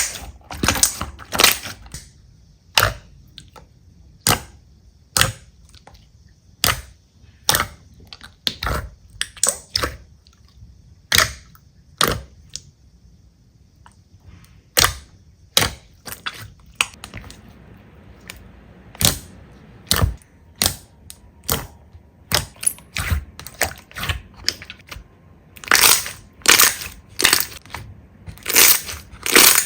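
Slime being pressed and squished, giving sharp pops and crackles at irregular intervals, roughly one or two a second, coming thicker near the end.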